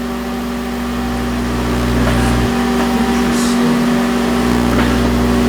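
Microwave oven running with a steady electrical hum, heating staples. The deepest part of the hum drops out about halfway through and comes back about a second later.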